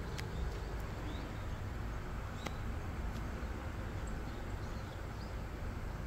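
Steady low outdoor background rumble, with a few faint, short high chirps scattered through it and a couple of brief clicks.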